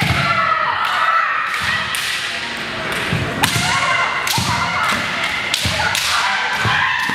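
Bamboo shinai clacking and striking in a kendo bout, with feet stamping on a wooden gym floor: a string of sharp clacks at irregular intervals, the loudest about three and a half seconds in, mixed with short high shouts rising and falling.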